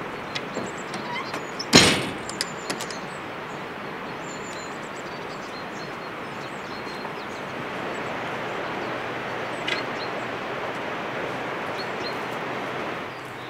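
Wooden shed door being shut: a few light knocks and clicks, then one loud bang about two seconds in. A steady outdoor hiss runs under it, with faint high chirps.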